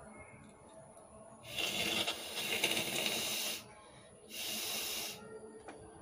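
A woman blowing her nose hard into the end of her cotton scarf: a long forceful blow of about two seconds, then a second, shorter blow.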